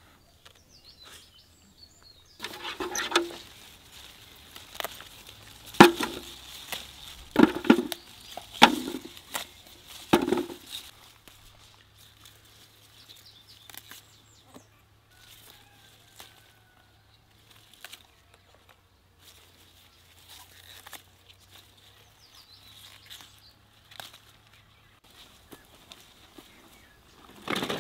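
Leafy pepper plants rustling and snapping as peppers are picked by hand and feet move through the rows. A run of loud, sharp crunches comes in the first ten seconds, then scattered faint rustles and clicks follow, with another burst of rustling near the end.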